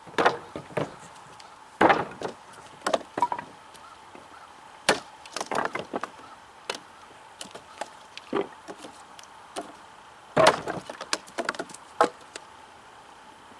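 A large cKc Voyager knife chopping into a weathered wooden block with light wrist strokes: a string of sharp wooden strikes at uneven spacing, some in quick runs, with wood chips splitting off.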